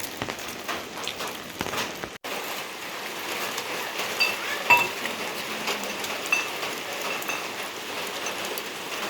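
Steady rain falling on surfaces, with many individual drops pattering. A few sharper, higher drips ring out in the middle.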